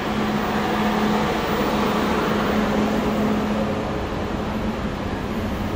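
Steady mechanical hum of a Dubai Metro train standing at a station, with a constant low tone in it.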